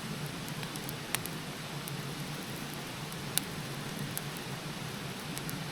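Steady rushing, rain-like water noise with a few sharp ticks scattered through it, like drops landing.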